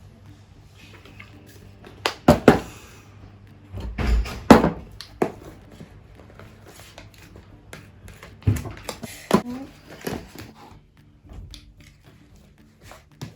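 Scattered knocks and clatters of containers and utensils being handled and set down. The loudest group of thumps comes about four seconds in, with smaller clusters before and after.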